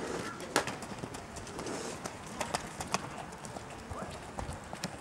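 Show-jumping horse cantering on a sand arena and taking a fence: muffled hoofbeats with scattered sharp knocks.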